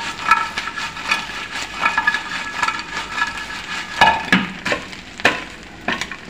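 Wooden spatula scraping and stirring batter-coated pumpkin pieces in a non-stick frying pan while they are sautéed, in quick repeated strokes. The pan is then shaken and tossed, with a few louder knocks about four and five seconds in.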